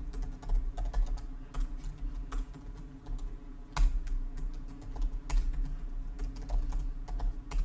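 Computer keyboard typing: irregular clicking keystrokes, with one harder key strike nearly four seconds in, over a steady low hum.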